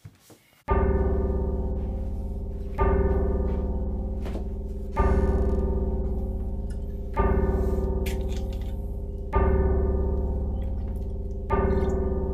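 Horror film score: a deep ringing note struck six times, about every two seconds, each fading slowly until the next, beginning just under a second in.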